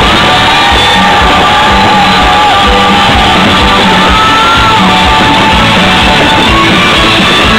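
Rock music with a sung or shouted vocal line over a steady drum beat.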